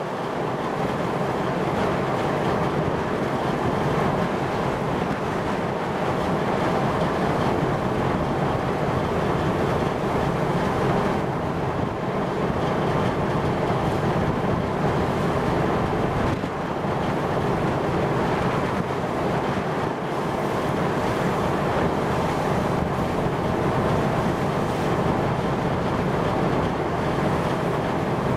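Steady rushing noise of wind on the microphone and choppy sea, with no distinct events.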